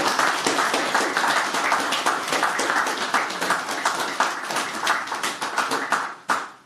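Audience applauding, a dense patter of hand claps that thins out and stops with a last clap about six seconds in.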